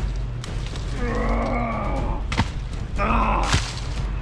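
A man grunting while a dead tree branch swung as a club knocks against the ground and fallen logs: several sharp wooden cracks, the loudest about two and a half and three and a half seconds in. A long, falling grunt comes about a second in and a shorter one just before the last strong crack.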